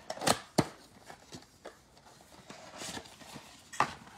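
Cardboard trading-card mega box being handled and opened by hand: two sharp knocks near the start, softer taps and scraping of cardboard in the middle, and another knock near the end.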